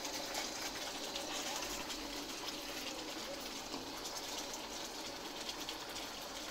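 Mutton karahi gravy sizzling in oil in a wok on a low flame, with faint crackles and spits, as a wooden spatula stirs it.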